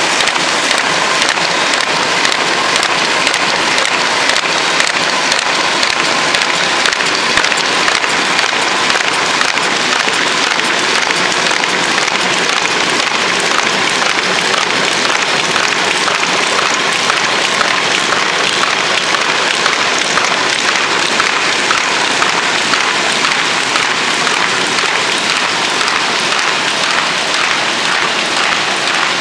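MBO B-123 buckle paper folder running, feeding sheets through its fold plates and rollers: a steady dense clatter with fine rapid ticking.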